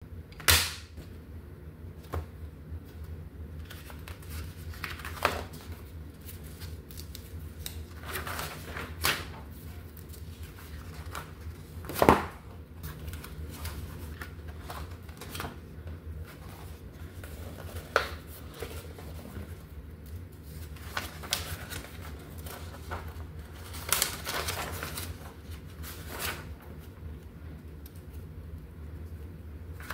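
A paperback coloring book being handled on a wooden tabletop: its pages turning and rustling, with a few sharp knocks of the book and hands against the table, the loudest about twelve seconds in. A steady low hum runs underneath.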